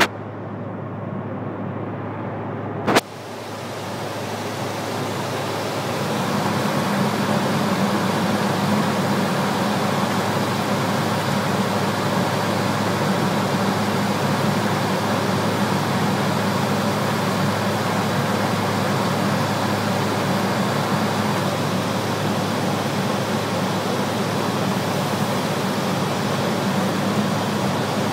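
Steady in-flight noise of a Dornier 328 airliner during its descent, heard from inside: a constant rushing hiss of engines and airflow over a steady low hum. A sharp click comes about three seconds in, after which the noise grows fuller and louder over the next few seconds, then holds level.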